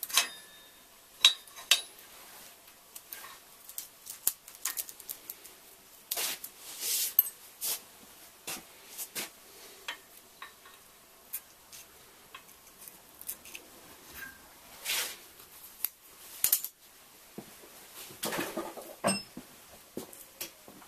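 Scattered sharp metallic clicks and clinks of small metal tools and fittings being handled by hand, including locking forceps, with a few brief rustles.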